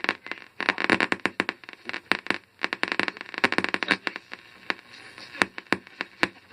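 Radio receiver crackling with static: a dense, irregular run of sharp clicks and pops, with bursts of hiss between them.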